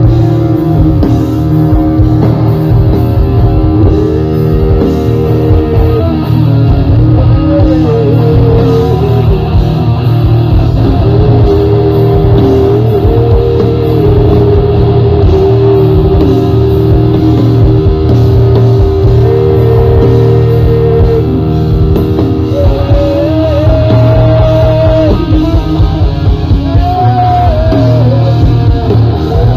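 A rock band playing live: guitars and drums over a heavy, steady low end, with a lead melody held in long notes that step and slide between pitches.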